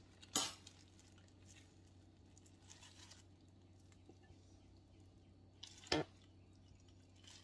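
Two short clinks of a metal fork against dishware, one just after the start and one about six seconds in, with a few fainter ticks between, over a faint low steady hum.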